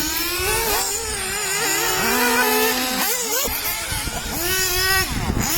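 Remote-control race cars' motors whining, their pitch rising and falling over and over as they accelerate and slow around the track, with several cars overlapping.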